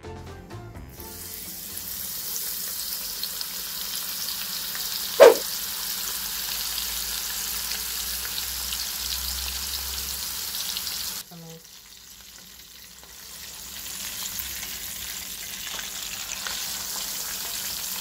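Seasoned fish fillet frying in hot oil in a pan: a steady sizzle that starts about a second in, with one sharp, loud pop about five seconds in. Around eleven seconds the sizzle drops away for a couple of seconds, then builds back up.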